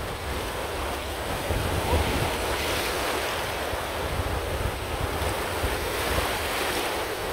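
Ocean surf breaking and washing over the shallows in a steady rush, with wind gusting on the microphone as a low rumble.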